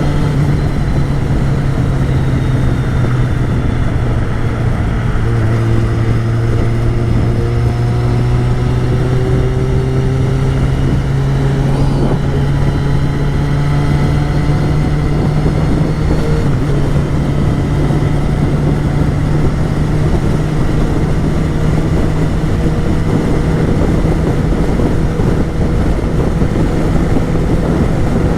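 Yamaha XJ6's 600cc inline-four engine running at steady road speed under wind and road rush. About five seconds in its pitch drops a step, then climbs slowly as the bike gathers speed.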